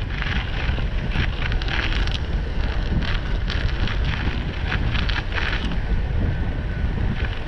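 Wind rumbling on the microphone of a camera moving along a path, with irregular gritty crunching over the thin layer of snow underneath.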